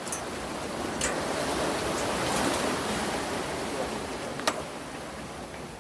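Ocean surf washing in, swelling about a second in and easing off again, with a sharp click about a second in and a louder one near the end.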